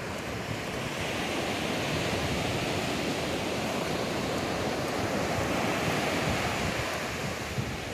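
Ocean surf washing onto a beach, a steady rush that swells and eases gently as the waves come in.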